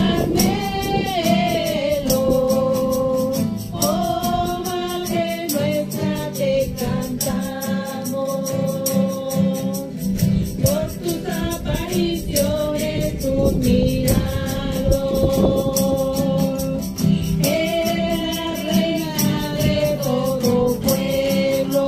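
A group of voices singing a church hymn in long held notes over a quick, steady percussion beat.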